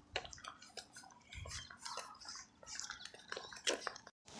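Faint footsteps of someone walking in sandals on a paved road: irregular light scuffs and ticks. The sound cuts out briefly near the end.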